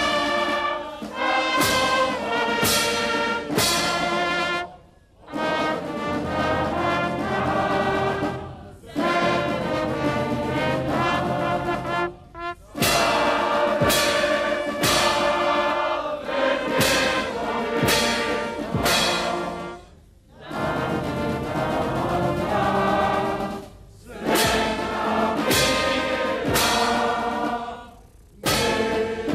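Solemn orchestral music with choir and brass, played in broad held chords broken by brief pauses every few seconds, with sharp percussion hits opening the phrases.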